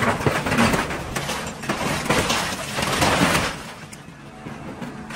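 Excavator grab claw crushing an old pickup truck: loud crunching and crackling of sheet metal and scrap for about three and a half seconds, then it eases off to the low hum of the excavator's engine as the claw lifts.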